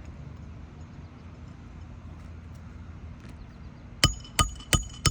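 Hammer striking a steel shingle-repair tool to drive a roofing nail under an asphalt shingle tab: four quick, ringing metal-on-metal strikes, about three a second, starting about four seconds in.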